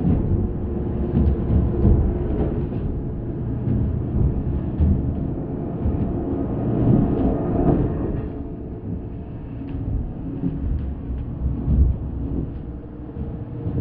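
Spooky ambience sound effect: a deep, steady rumble with faint scattered clicks, easing off a little after about eight seconds.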